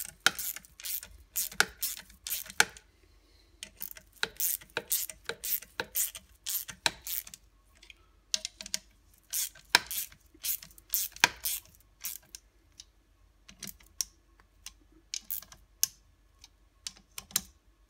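Screws being tightened in turn into a Bosch alternator's rear cover: a run of irregular sharp clicks in bunches of several a second, broken by short pauses.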